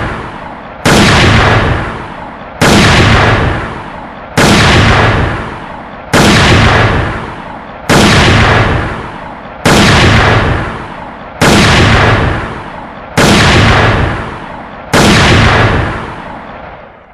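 Dragunov sniper rifle firing single shots in a slow, regular series, one about every 1.75 seconds, nine in all. Each shot has a long echoing tail that fades before the next.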